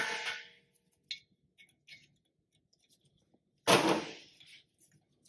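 A hammer strikes a hand impact driver seated in a brake rotor retaining screw, turning it to break the screw loose. There is one sharp, loud blow about three and a half seconds in that rings briefly, and a couple of faint metal clicks before it.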